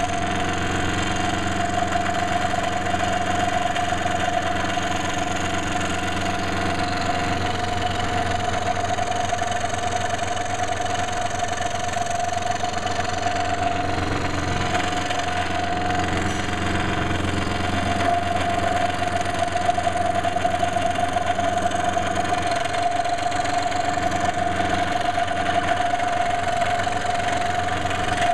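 Electric saw running steadily while cutting puzzle pieces out of a wooden board, a constant mechanical drone with a steady whine.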